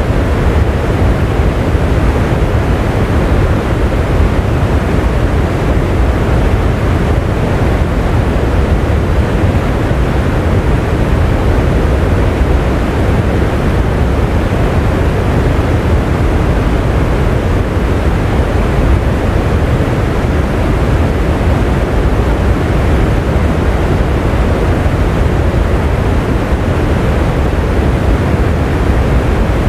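Steady rain, a loud, even rushing noise that never changes, with no single drops, thunder or other events standing out.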